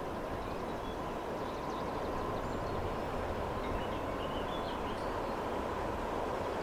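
Freight train rolling past, a steady rumble of wheels on rail.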